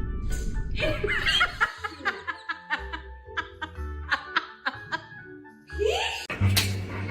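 Background music with laughter, and a run of short sharp clicks in the middle.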